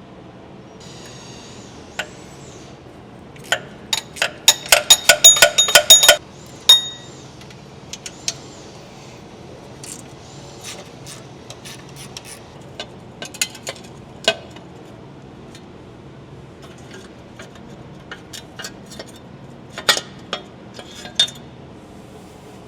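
Metal hand tools and engine parts clinking and clicking during a Toyota 2JZ top-end teardown: a rapid run of sharp, ringing metallic clicks about four seconds in, then scattered single clinks and taps.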